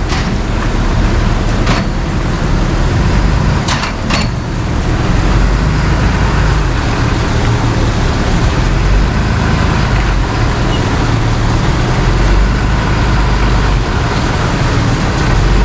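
A tow truck's engine running steadily, with rain on wet pavement, and a few short clicks about two and four seconds in.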